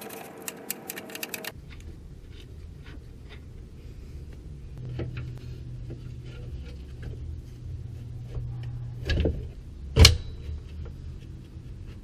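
Scattered light metallic clicks from hand tools and parts being worked on a car's front suspension, over a low steady hum. Two loud metal clanks come about nine and ten seconds in.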